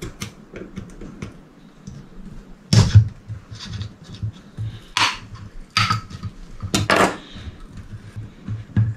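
A kitchen knife stabbing and scraping at the seal in the neck of a plastic sriracha bottle, a run of sharp clicks and knocks with the loudest about three, five and seven seconds in.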